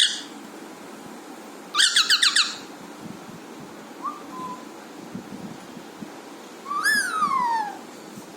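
Alexandrine parakeet calling: a quick run of about six harsh notes about two seconds in, a short faint whistle a couple of seconds later, then a longer call that rises and slides down in pitch near the end.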